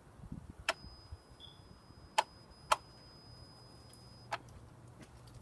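Sharp, irregular clicking from a 2007 Honda Accord: four loud clicks at uneven gaps, the middle two about half a second apart. A faint high steady whine sounds from the first click to the last.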